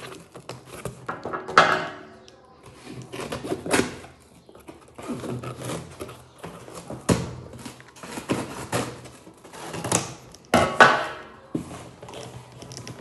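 A cardboard box being pulled at and cut open with scissors: irregular scraping, rustling and tearing of cardboard, with a few sharp knocks. Louder bursts come about a second and a half in and again near eleven seconds.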